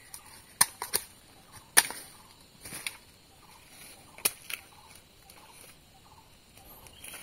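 A digging tool striking into forest soil and dry leaf litter: about six sharp strikes in the first half, the loudest about two seconds in, then quieter scraping and rustling.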